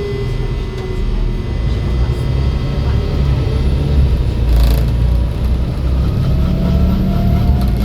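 Volvo B7 bus running with a heavy engine drone and whines that change pitch, one falling in the first second and others rising over the last few seconds. A short burst of hiss comes about four and a half seconds in.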